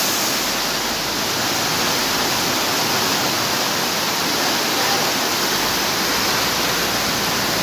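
Heavy rain pouring down, a steady dense rush of water.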